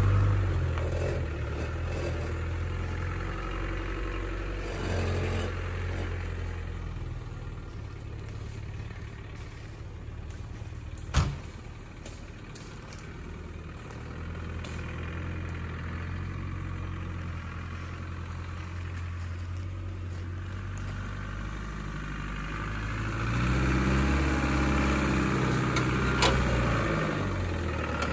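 Land Rover Discovery engine running at low revs as the vehicle crawls off-road, growing fainter in the middle and then louder again near the end as it is revved and eased off, the pitch rising and falling. A single sharp crack is heard about eleven seconds in.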